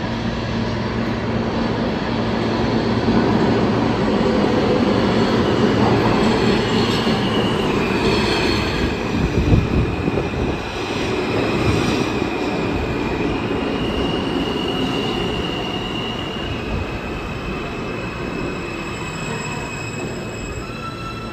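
R160 New York City subway train pulling into the station and slowing to a stop: a loud rumble of wheels on rails, with high wheel and brake squeal starting about seven seconds in, easing off as it slows.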